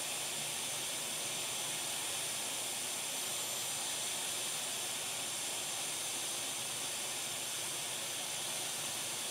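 Hot air rework station blowing a steady hiss of air while desoldering a shorted chip from a laptop motherboard.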